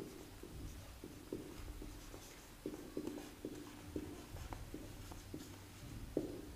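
Felt-tip marker writing on a whiteboard: a string of short, faint strokes as letters are drawn.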